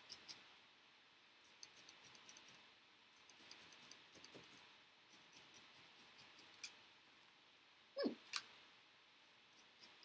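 Faint, scattered ticks and light scratches of a paintbrush dabbing oil paint onto a canvas. About eight seconds in there is a short sound falling in pitch, together with a couple of sharper clicks.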